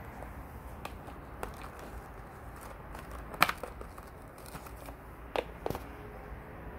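Handling of the earbuds' cardboard box and plastic tray: a handful of short, sharp taps and clicks, the loudest about three and a half seconds in and two more close together near the end, over a steady low background hum.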